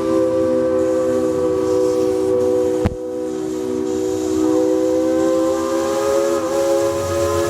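Steam locomotive's chime whistle held in one long, steady blast, several notes sounding together as a chord that drifts slightly up in pitch. A single sharp click sounds about three seconds in.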